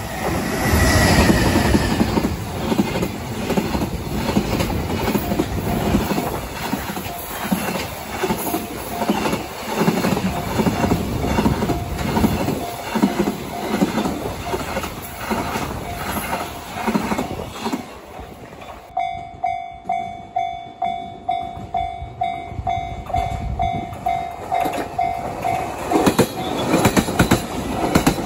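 JR Freight EH500 electric locomotive and its container wagons passing at speed, the wheels clattering rhythmically over the rail joints. About two-thirds of the way in, a level crossing bell starts ringing steadily, roughly one ding every three quarters of a second. Near the end, a JR East E721-series electric commuter train rushes past close by with a loud rumble and wheel clack.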